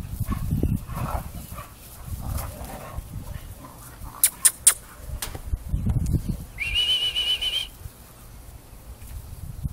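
Dogs play-fighting, growling and scuffling, with a few sharp clicks near the middle. A high-pitched whine lasts about a second, just after the middle.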